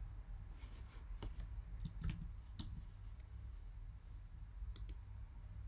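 A handful of sharp, irregularly spaced clicks from a computer mouse and keyboard, over a low steady hum.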